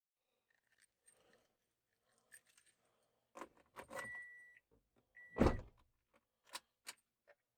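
Faint handling noises: scattered clicks and knocks, a short steady high beep heard twice around four and five seconds in, and one louder thump about five and a half seconds in.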